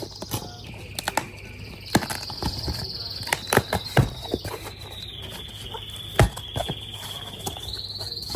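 Sharp clicks and knocks of metal parts being handled on a wheel-truing stand, irregular and about a dozen in all. Behind them a bird sings a high, continuous trilling song.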